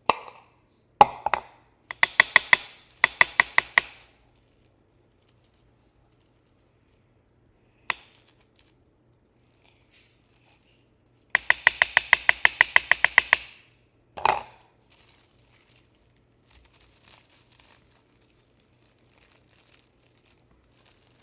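Plastic wrap pulled off its roll in three quick runs of rapid crackling, the longest near the middle, with a few light knocks between and soft crinkling of the film near the end.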